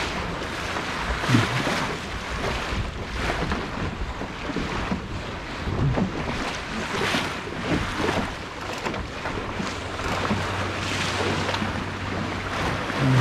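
Wind buffeting the microphone over water rushing and slapping along the hull of a Flying Dutchman sailing dinghy under way, in uneven surges.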